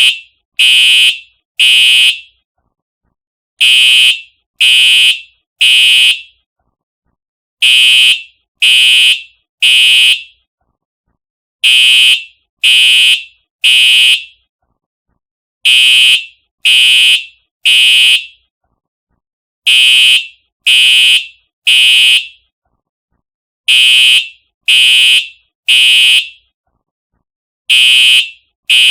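Simplex TrueAlert fire alarm horn sounding in the temporal-three evacuation pattern. It gives three loud, half-second blasts about a second apart, then a pause, and the group repeats every four seconds.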